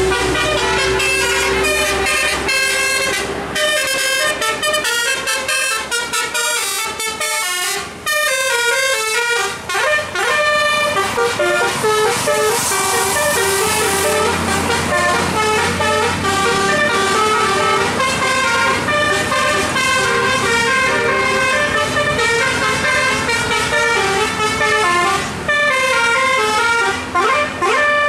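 Tour bus musical 'telolet' air horn playing a rapid melody of short, stepping notes, almost without a break.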